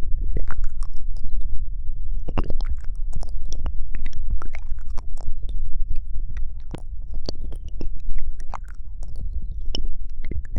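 ASMR mouth sounds close to the microphone: a quick, irregular run of wet clicks and smacks over a steady low rumble.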